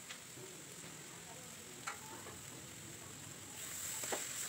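Grated carrot and shredded cabbage sizzling in a metal kadhai while a metal spatula stirs them, with a few sharp scrapes or taps of the spatula against the pan. The sizzle grows louder near the end.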